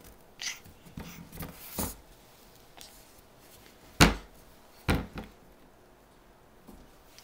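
Several knocks and thumps against a wooden crib: light ones in the first two seconds, the loudest about four seconds in, and another about a second after it.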